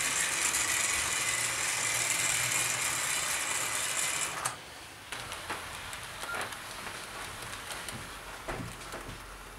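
00 gauge model trains running on the track: a steady whirring rattle of motors and wheels. About four and a half seconds in it drops suddenly to a quieter rolling with scattered clicks of wheels passing over rail joints and points.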